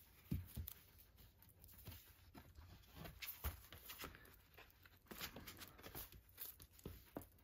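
Faint handling of a shrink-wrapped vinyl LP sleeve: light crinkling of the plastic wrap and card rubbing against card, with a soft knock just after the start.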